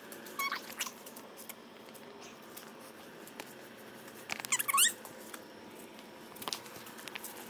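High-pitched squeaks: a short one about half a second in, then a louder cluster of squeals sliding down and up in pitch around four and a half seconds in, with a sharp click near the end.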